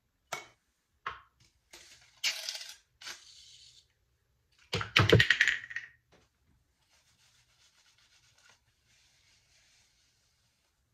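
Aerosol can of hair mousse being handled and dispensed: a few sharp clicks and short hissing spurts, the loudest about five seconds in. Then faint crackling as the foam is worked into the synthetic locs.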